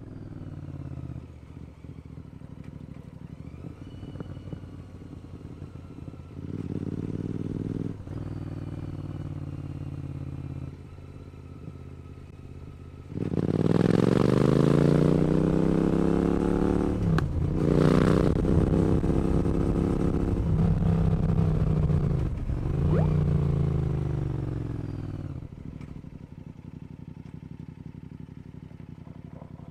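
Royal Enfield Continental GT motorcycle engine under way. It runs steadily at first, then about halfway through opens up and gets much louder, the pitch climbing and dropping sharply twice at gear changes, before easing off near the end.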